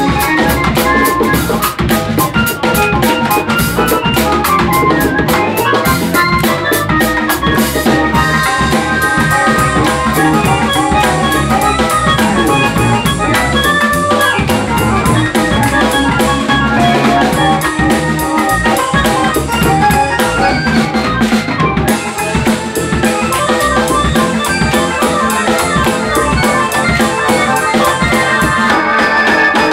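Live funk-fusion band playing a groove: drum kit and percussion with keyboards and electric bass. The lead is an F-Bass BN6 run through a Roland VB-99 so that it sounds like a guitar.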